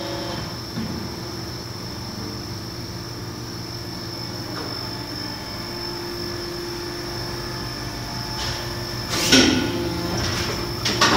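Engel ES 330/80 HL hydraulic injection moulding machine running in production: a steady hum with a constant whine. About nine seconds in comes a loud, brief clattering rush, followed by a few sharp clicks near the end.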